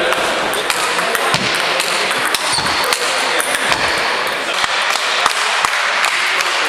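Table tennis rally played with hardbats: the celluloid ball clicks sharply off the bats and the table many times, over a steady background noise.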